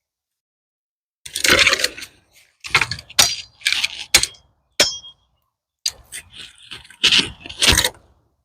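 Dry pecan branches and twigs cracking and snapping: a series of sharp, irregular cracks with short gaps between them.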